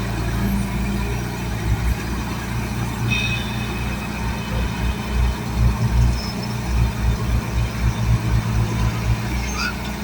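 Heavy construction machine's engine running with a low rumble that pulses unevenly, more choppy in the second half.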